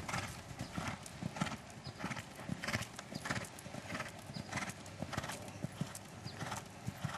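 Horse cantering on an arena's sand footing: a steady, even rhythm of hoofbeats.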